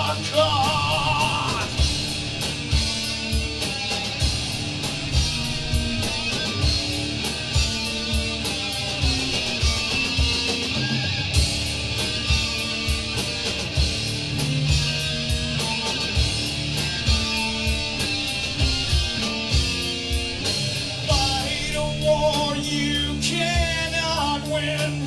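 Live rock band playing an instrumental passage: distorted electric guitar, bass and a steady drum beat. A sung word is held briefly at the very start.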